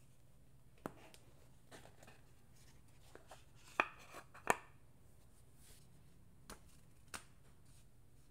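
Gloved hands handling a cardboard jewellery box and its paper inserts: scattered soft taps and card rubs. The two loudest taps come about four seconds in, as the lid and box are set down.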